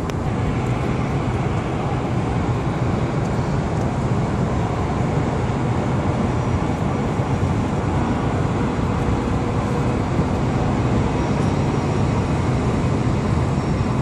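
Steady road noise of a car driving on a snowy highway: engine and tyre rumble heard from inside the cabin.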